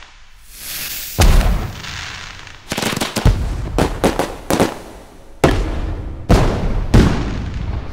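An uneven run of about ten sharp bangs and clatters, like firecrackers bursting, as steel spoons and frying pans crash onto a hard kitchen floor, each hit with a short ringing tail.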